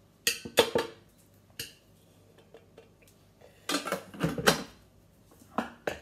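Metal clanks and knocks of a Thermomix TM6 stainless-steel mixing bowl and spatula. A few sharp knocks come as the last noodles are knocked out of the tipped bowl, then a longer clatter around the middle and another knock near the end as the bowl is set back into its base.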